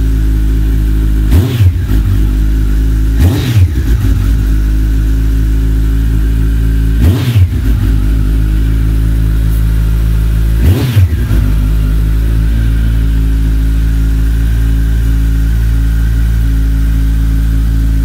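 Kawasaki ZX-14R SE's inline-four engine running through Yoshimura R77 carbon slip-on mufflers: a steady idle, with four quick throttle blips in the first eleven seconds.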